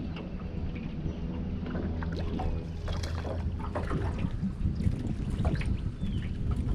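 Steady low hum on a small boat on the water, with scattered light clicks and knocks from handling fishing gear.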